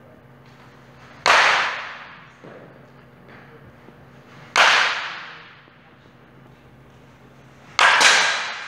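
Baseball bat hitting pitched balls in an indoor batting cage: three loud, sharp cracks about three seconds apart, each fading over about a second, the last followed at once by a second knock. A low steady hum runs underneath.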